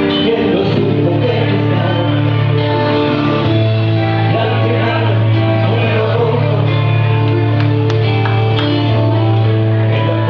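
Guitar-led song played by a band, with long held bass notes underneath and layered melody above.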